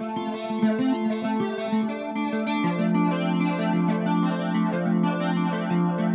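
Electric guitar playing an ambient improvisation through effects, its notes ringing on over one another. Quickly picked notes give way about two and a half seconds in to a lower note that holds under the rest.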